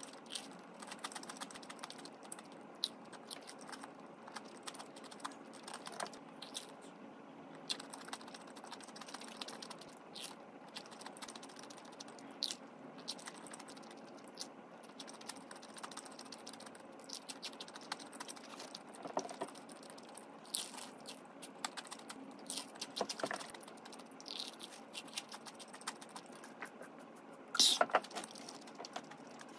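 Close-up chewing and crunching of crispy-coated fried chicken: an irregular run of small crackling clicks, with a louder cluster of clatter near the end.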